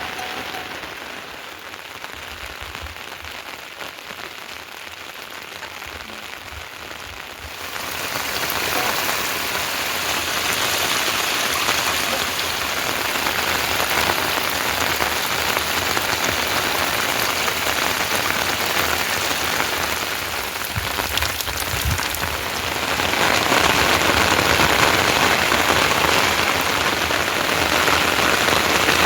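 Heavy rain falling, a steady hiss of drops on surfaces. It gets suddenly louder about a quarter of the way in and swells again near the end.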